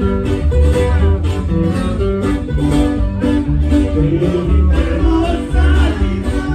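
Ranchero-style band music: plucked guitar over a heavy bass line with a steady beat.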